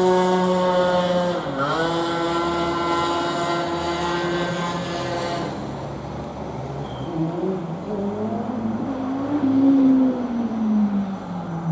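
A motor vehicle's engine running at steady revs with a brief dip in pitch about a second and a half in. It drops away around the middle, and a lower engine note then rises and falls.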